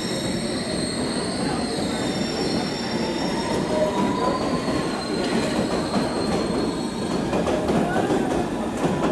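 London Underground S7 Stock train pulling out of the platform and gathering speed, rumbling steadily, with thin high wheel squeals that fade out about seven seconds in. A faint whine rises a little in the first half, and wheel clicks over the rail joints come through in the second half as the cars pass.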